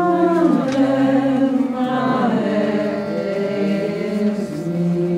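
Voices singing a slow song in long held notes that move from pitch to pitch.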